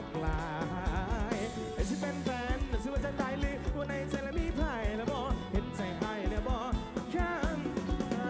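Live band playing a song through a concert PA: a singer with wavering, vibrato-laden vocal lines over drums and electric guitars.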